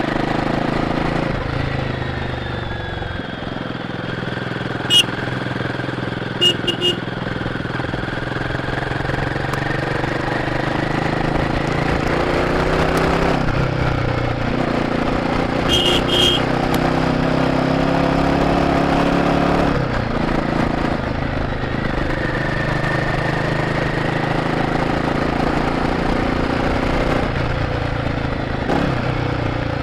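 Royal Enfield Guerrilla 450's single-cylinder engine running through its stock exhaust while riding, its revs rising and falling. A few brief high beeps cut in, one about five seconds in, two a moment later and more about halfway through.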